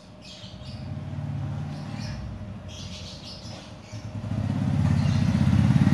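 A motor vehicle's engine running, its low pulsing note growing louder over the last second and a half. Faint bird chirps come about three seconds in.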